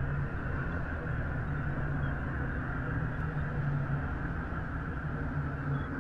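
Heavily processed spacecraft recording of planetary radio emissions, played as an ambient drone: a steady rushing noise over a low hum that comes and goes.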